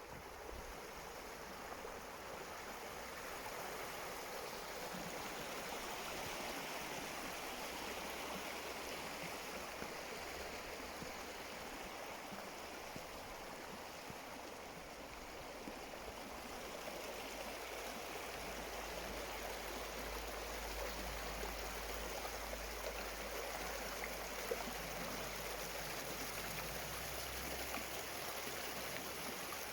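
Stream water tumbling over a small waterfall, a steady, continuous rush.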